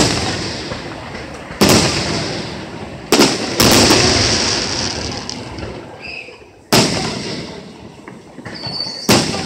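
Aerial firework shells bursting: six sharp bangs, irregularly spaced, each followed by a long fading hiss and rumble.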